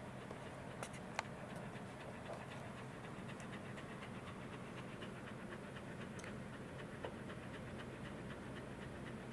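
Welsh corgi panting quickly close to the microphone, with two sharp clicks about a second in.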